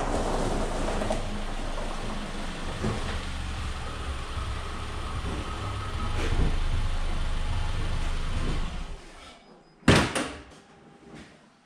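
Mitsubishi Outlander's 2-litre four-cylinder petrol engine running at low speed as the car pulls in and stops, then switched off about nine seconds in. A second later the driver's door opens with a single loud clunk.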